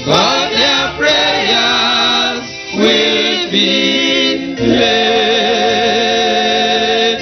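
Gospel choir singing the close of the song, ending on a long held chord with vibrato over the last few seconds.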